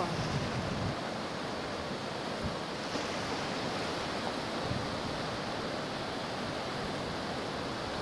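Baltic Sea surf breaking on a sandy beach: a steady rush of waves.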